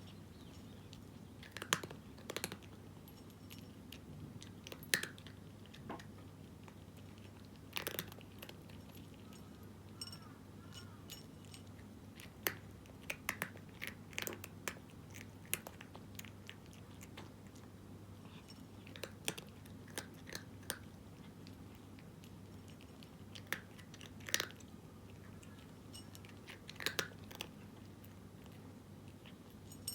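A cat crunching dry kibble in irregular bursts of sharp crunches, with pauses between them. A steady low hum runs underneath.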